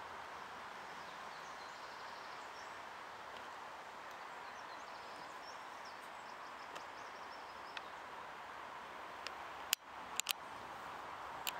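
Steady outdoor background hiss by a still river, with faint high bird chirps through the first half. A brief drop-out and a few sharp clicks come near the end.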